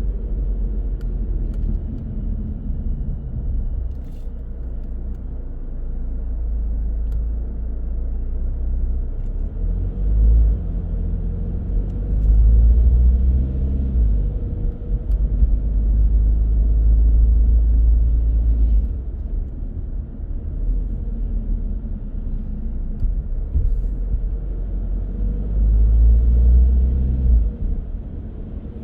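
Car on the road: a steady low rumble of engine and tyres. The engine note rises a couple of times as the car accelerates, about a third of the way in and again near the end.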